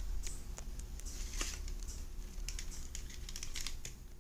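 Light, irregular clicks and rustles of hands handling insulated wires with metal crimp terminals and small parts in a clear plastic compartment box.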